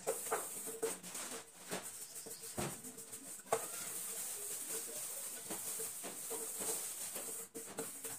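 Dishes being washed by hand at a kitchen sink: a few light clinks of crockery in the first half, over a faint steady hiss. A pigeon coos faintly in the background throughout.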